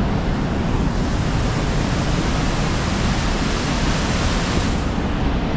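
Steady rushing of the Merced River's whitewater rapids below Vernal Fall, a continuous even roar of falling and churning water.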